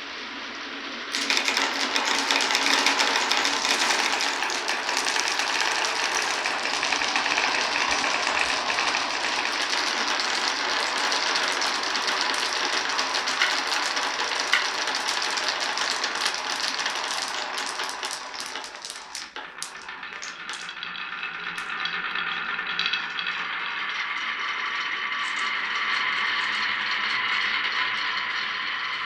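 Many glass marbles rolling and clattering down a wooden marble run. A dense clatter starts about a second in, thins to separate clicks a little after halfway, then settles into a steadier rolling rattle.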